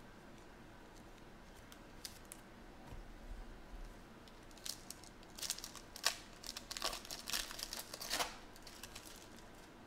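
A foil trading-card pack wrapper (2017 Panini Certified football) being torn open and crumpled by hand. A few seconds of light handling come first, then about halfway in a run of sharp crackling crinkles, loudest near the end.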